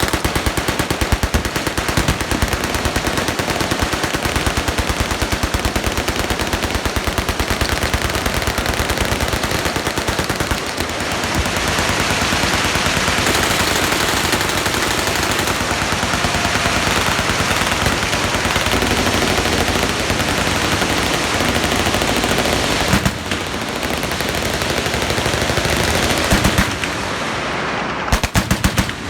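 Many machine guns firing at once in long, overlapping full-auto bursts, a continuous rattle of rapid shots with no pause.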